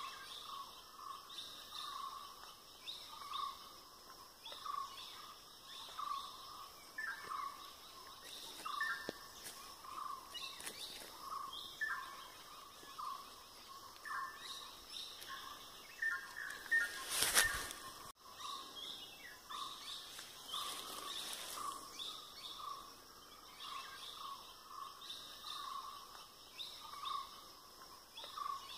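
Birds calling in a coffee plantation: one note repeated steadily, about three times every two seconds, over higher chirps and the hum of the surroundings. A sudden loud burst sounds once about 17 seconds in.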